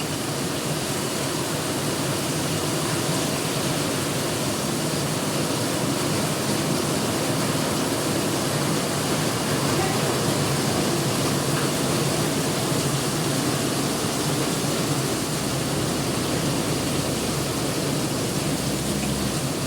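Rain falling, a steady unbroken hiss.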